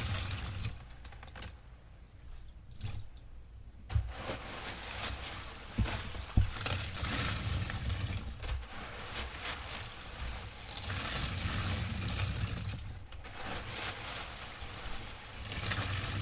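Wet sponge soaked in fabric-softener rinse water being squeezed, the sudsy water squelching and pouring out of it in long wet rushes. A short lull comes early, and a few soft thuds land around the middle.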